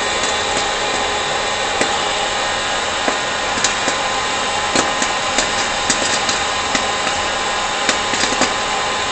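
Hot-air popcorn popper in a homemade vending machine, its fan blowing steadily while kernels pop now and then as scattered sharp clicks.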